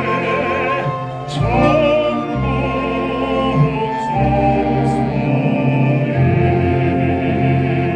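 Baritone singing in an operatic style with vibrato, accompanied by a pops orchestra.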